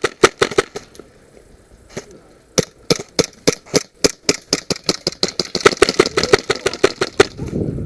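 Airsoft guns firing rapid single shots, sharp pops: a few quick shots at the start, one shot about two seconds in, then a steady string at about five shots a second for several seconds.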